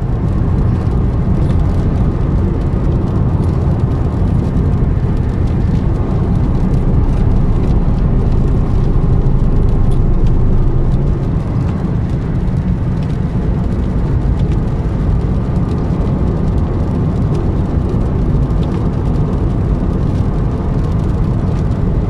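Steady low rumble of a car driving, heard from inside the cabin: engine and tyre noise on the road.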